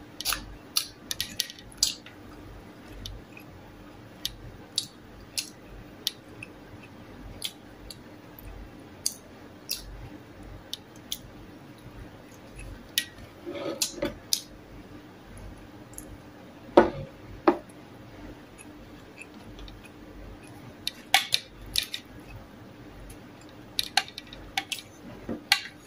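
Close-up eating sounds: crisp oven-baked beef bacon being picked by hand from a metal tray and chewed, giving irregular sharp crunches and clicks, some in quick clusters, over a faint steady hum.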